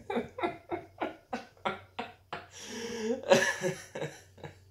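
A man laughing: a quick run of short, evenly spaced bursts, about three a second, then a louder breathy burst about three seconds in.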